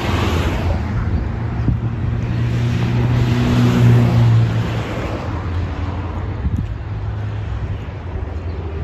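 Road traffic passing: the rush of car tyres on the road, with an engine hum that swells to its loudest about four seconds in and then fades, over wind buffeting the microphone.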